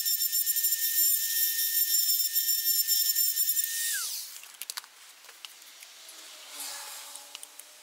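Hand-held rotary tool grinding sharp edges off a motorcycle piston crown to prevent pre-ignition: a steady high-pitched whine that drops in pitch and dies away as the tool is switched off about four seconds in. After it come a few light clicks and the soft rustle of a rag wiping the piston.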